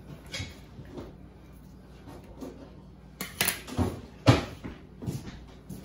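Scattered knocks and light clatter on a metal sheet pan as raw sausage links are handled and scissors are laid down on it; the sharpest knocks come a little after three seconds and again about four seconds in.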